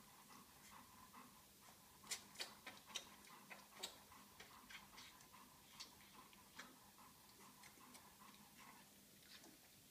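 Quiet whelping box with two-week-old golden retriever puppies and their dam, broken by soft clicking and smacking sounds. The clicks come in a quick run about two to four seconds in, with a few scattered ones later.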